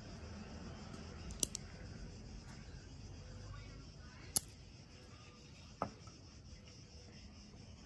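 Sharp metallic clicks from a 1950s SAFFA Scintilla chrome-plated petrol lighter being worked by hand: a quick double click as the lid is snapped shut, then a louder single click and a softer one about a second and a half later as the striking mechanism is fired and the wick lights.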